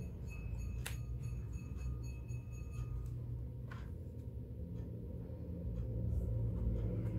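Stiff cardstock pages of a postcard book being turned and handled by hand, with soft paper rustling and a sharp click about a second in and another near four seconds in, over a low steady background drone.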